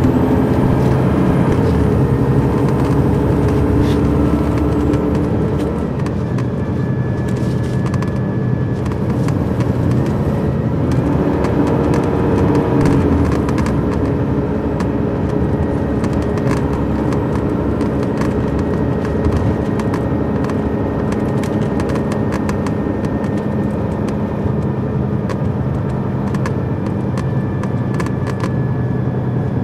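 Detroit Diesel Series 60 diesel engine of an MCI D4500 coach running at a fairly steady pitch, heard from inside the bus, with a brief rise and fall in engine pitch about eleven seconds in. Light rattling clicks run throughout.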